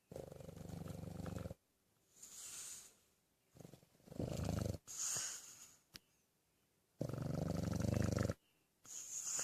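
A sleeper snoring: three slow, low, rattling snores, each followed by a shorter breathy hiss. There is a brief click about six seconds in.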